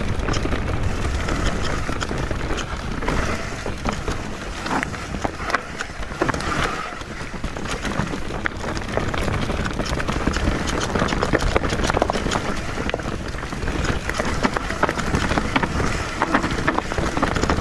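Mountain bike riding down a rough forest singletrack: tyres crunching over dirt, dry leaves and stones, with many quick clicks and knocks as the bike rattles over the bumps, over a steady low rumble of wind on the microphone.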